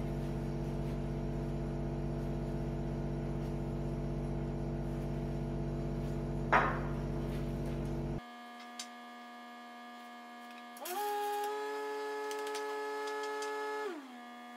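A steady electrical hum with one sharp click partway through. It cuts off abruptly past the middle, and a small motor's whine then spins up, runs steadily for a few seconds and winds down near the end.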